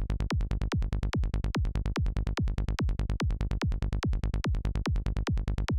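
Psytrance kick and bass loop: a synthesized kick drum, each hit a sharp click falling into a deep thump, on a steady four-on-the-floor beat, with a Sylenth1 synth bass filling the gaps between kicks in a rolling pattern.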